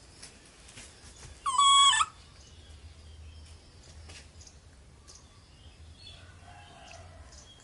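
A baby monkey gives one short, high call at a steady pitch about one and a half seconds in. Faint small clicks and rustles follow.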